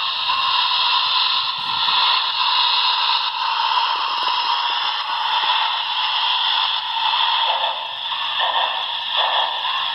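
Onboard sound system of a Broadway Limited HO-scale Union Pacific Challenger model steam locomotive playing steady steam hissing through its small speaker, with uneven pulses coming in over the last few seconds.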